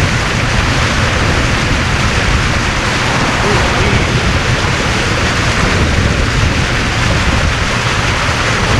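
Steady rush of wind buffeting the microphone and water hissing past the hull of a jonboat running fast across the lake.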